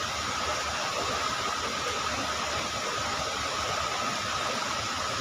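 Steady rush of flowing river water, with a thin steady high tone over it.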